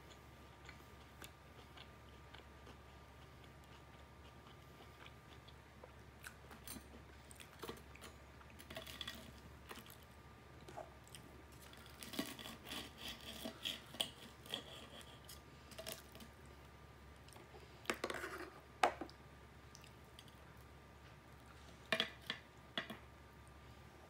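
Knife and fork sawing through extra-crispy fried chicken on a plate, with crackly crunching and clicks of cutlery in scattered bursts, and chewing between them.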